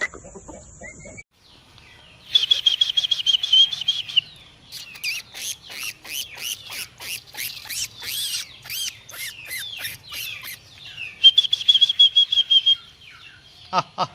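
Birds chirping: a quick rapid trill, then a run of many short falling chirps, then another quick trill near the end. A thin high steady tone is heard briefly at the start and cuts off suddenly about a second in.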